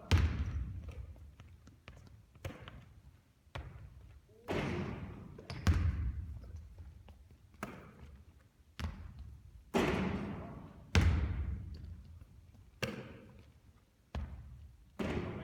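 A basketball bouncing and thudding on a hard court, roughly one hit a second, each hit trailing off in echo. The heaviest thuds come at the start, about six seconds in and about eleven seconds in.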